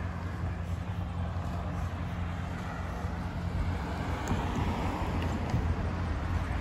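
Steady low rumble of a running vehicle engine under outdoor noise, which grows a little louder about four seconds in.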